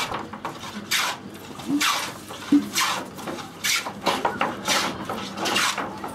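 Rhythmic scraping strokes of a hand tool worked along a wooden plank, about one stroke a second.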